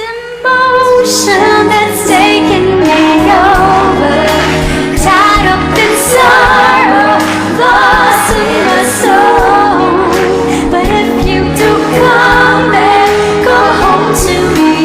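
Pop song with a woman singing the melody over a full band accompaniment; the music comes in loud about half a second in after a brief dip.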